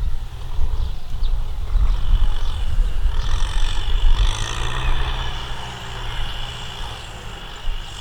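Tractor engine running with a heavy low rumble. From about two seconds in, a high-pitched whine sits over it, and the sound fades somewhat toward the end.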